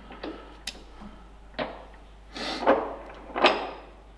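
Several separate metal clicks and clunks from hand-adjusting a Wohlhaupter boring head with a hex key, the loudest two near the end.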